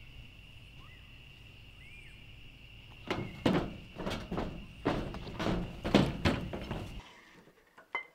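Heavy footsteps on a corrugated metal roof, about two a second, starting about three seconds in and cutting off suddenly near the end. Before them, a steady high insect drone with a few faint bird chirps.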